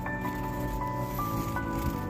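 Background music: held notes at several pitches, moving to new notes every half second or so.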